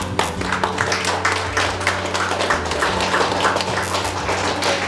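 Audience applauding, a dense patter of many hands clapping, over a steady low hum.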